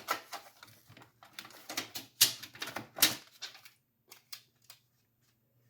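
Scattered clicks and light taps of a laptop SSD being handled and set into the HP ProBook 4530s's drive bay, with two sharper clicks about two and three seconds in.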